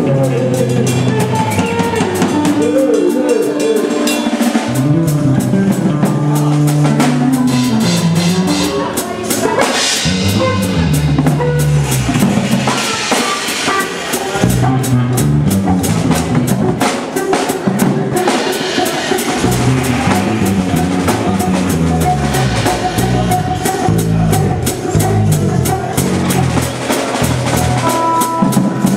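A live band playing an improvised rock jam. A drum kit is struck densely throughout with cymbals and snare, under wandering bass guitar and electric guitar lines.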